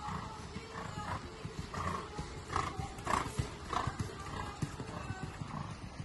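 A horse's hoofbeats at trot on the sand footing of a dressage arena, a run of dull thuds that are loudest about three seconds in as the horse passes close by.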